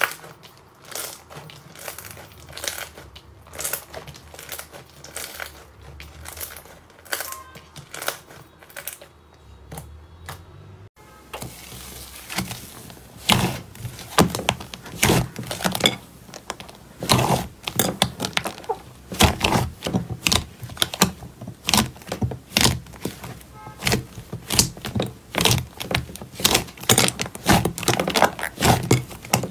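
Hands kneading and squeezing slime, making a quick run of sticky clicks and squishes. About eleven seconds in the sound changes as a large mass of soft slime in a glass bowl is pressed and folded, and the clicks and squelches come louder and denser.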